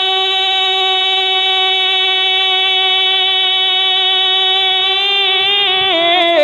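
A male voice singing a naat holds one long note steadily for about five seconds. Near the end the note wavers and drops in pitch into an ornamented run down the melody.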